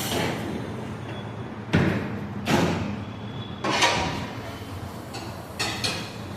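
Motorcycle tyre-changing work in a tyre shop: four sudden sharp knocks spread over a few seconds, each ringing off briefly, over a steady background hum.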